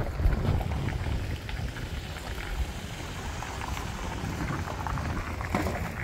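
Footsteps crunching and crackling on icy, crusted snow, with wind buffeting the microphone in a steady low rumble.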